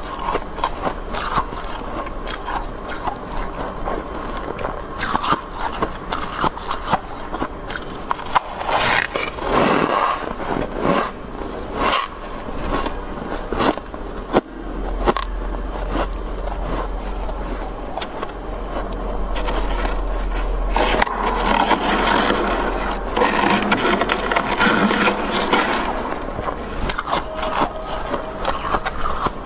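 A metal ladle scraping and scooping thick frost buildup in a freezer compartment: a rough scrape with many sharp ticks, heaviest about nine to eleven seconds in and again from about twenty seconds in.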